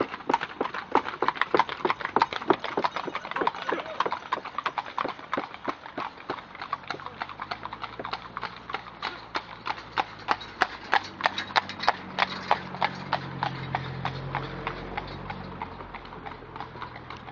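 Hooves of a group of horses clip-clopping on a hard surface, several strikes a second in an uneven, overlapping rhythm. In the second half a low steady hum swells and fades beneath the hoofbeats.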